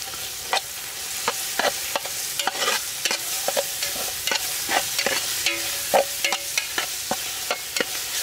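Lemongrass, garlic and red paste sizzling steadily in hot oil in a metal pot while a metal spatula stirs them. The spatula scrapes and clinks against the pot many times at an irregular pace, and some of the clinks ring briefly.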